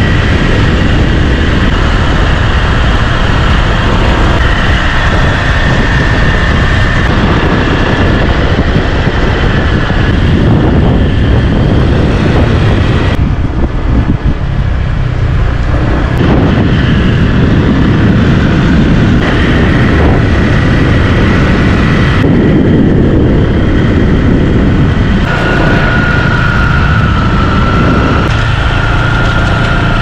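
Wind buffeting the microphone of a camera moving at cycling speed alongside road bikes: a steady loud rumble, with a thin high tone over parts of it.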